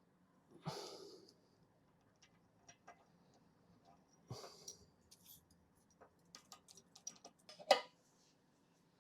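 Metal workholding parts and tools being handled by hand: scattered light clicks and clinks, two short soft rushing sounds, and a sharper, louder clink near the end. No machine is running.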